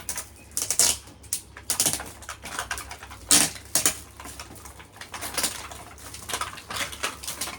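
Gift wrapping and packaging rustling and crinkling as it is handled and torn open, with irregular crackles of uneven loudness.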